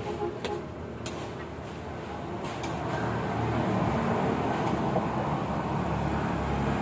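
A motor vehicle's engine running nearby, growing louder about two seconds in and then holding steady. A few light clicks of a spoon and fork against a plate sound over it.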